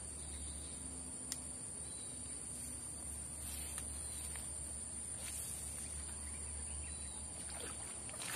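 Insects chirring in the vegetation: a steady, high-pitched drone, with a few faint ticks.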